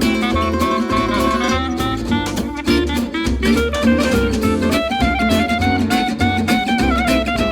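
Background music: an upbeat, guitar-led instrumental over a pulsing bass line.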